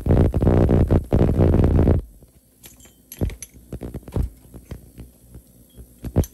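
Ultrasonic instrument cleaner running with a loud, throbbing hum, the 'weird noise'. It stops abruptly about two seconds in, leaving a few light clinks of metal dental instruments being handled.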